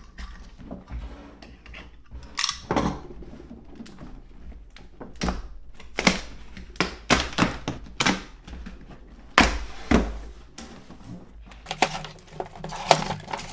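A cardboard box being opened: a utility knife slitting the packing tape on its sides, tape being peeled off, and the cardboard flaps and inner tray handled, in an irregular run of scrapes, taps and knocks with one longer scrape about nine and a half seconds in.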